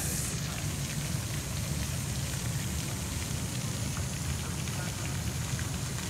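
Fountain jets spraying and splashing down into a pond: a steady rush of falling water, over a steady low rumble.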